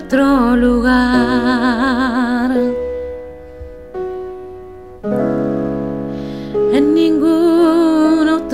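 A woman sings a long held note with vibrato over a karaoke backing track with piano. The voice drops out for a few seconds, leaving the piano chords, and comes back with another held, wavering note about six and a half seconds in.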